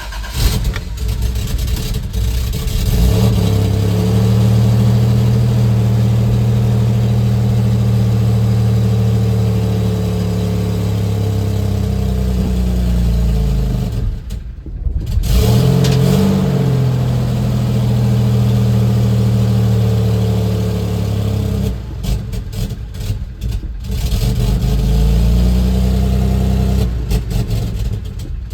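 1990 Toyota pickup's engine catching at the start and running unevenly. It sags almost to a stall about halfway through, then stutters again later before settling. The rough running is that of a tired, poorly running engine, which the owner calls terrible.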